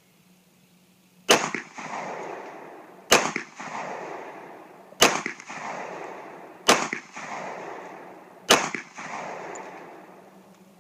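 Springfield XD-S subcompact pistol firing five slow, aimed shots about two seconds apart. Each sharp report is followed by a long, fading echo.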